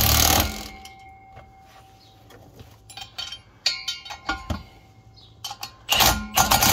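Cordless impact wrench hammering the driveshaft-to-Guibo flex-disc bolts tight in short bursts: one right at the start and another about six seconds in, with small metallic clicks between as the socket is moved from bolt to bolt.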